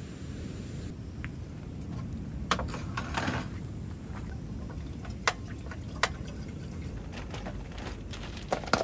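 Low wind rumble with a few sharp clicks and short clatters of kitchenware and bottles being handled and set down on a camp table.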